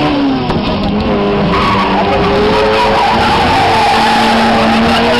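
A hatchback's tyres squealing and skidding on asphalt as it is spun in a drift, with the engine running hard underneath. The squeal holds steady with slowly wavering pitch.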